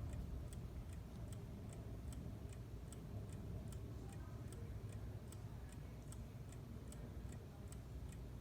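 Howard Miller bracket mantel clock with a 1987 Hermle 340-020 movement ticking steadily, about two and a half ticks a second.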